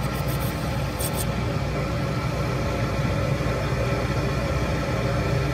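Metal lathe running steadily, its motor and gearing giving an even hum, with a few faint light ticks about a second in as the boring tool is brought up to the bushing.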